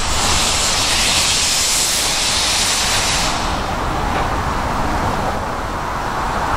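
Industrial tank steam locomotive letting off steam in a steady hiss for about three seconds, which then dies away.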